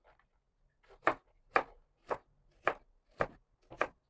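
Chef's knife slicing half a red onion on a wooden cutting board: six even cuts, about two a second, starting about a second in.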